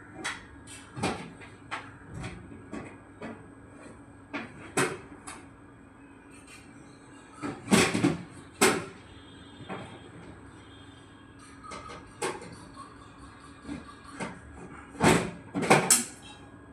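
Irregular knocks and clicks of hard objects being handled, with louder clattering twice, about eight seconds in and near the end.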